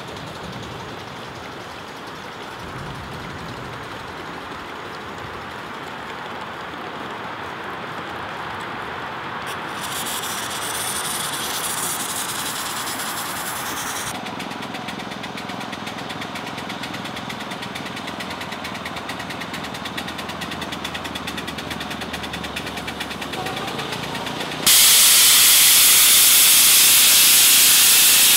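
Small wood-fired live steam locomotives (2.5-inch scale on 7.5-inch gauge track) running, with steam hissing at times. About three seconds before the end a loud, steady hiss of venting steam starts suddenly and becomes the loudest sound.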